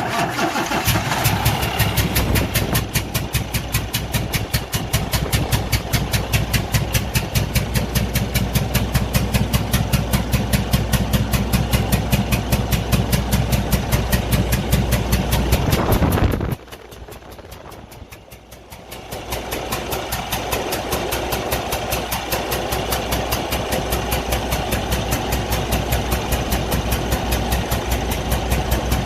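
Cummins ISX15 inline-six diesel engine running rough and misfiring, with a fast, even pulsing beat: the sign of a massive compression leak in one cylinder. A bit over halfway the sound drops away suddenly, then builds back about two seconds later.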